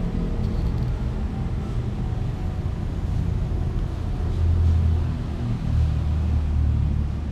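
Steady low rumble that swells twice, around the middle and again near the end.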